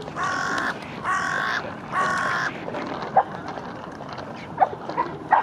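Carrion crow cawing three times: harsh calls of about half a second each, evenly spaced. A few short sharp sounds follow.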